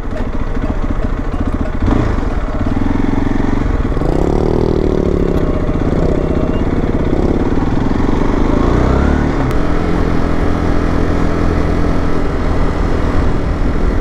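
Motorcycle engine running under way; its note rises and falls between about four and nine seconds in, then holds steady.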